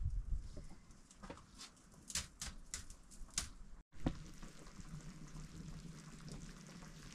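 Scattered sharp clicks and taps. About four seconds in they give way to a steady bubbling hiss of a pot of pork boiling over an open wood fire.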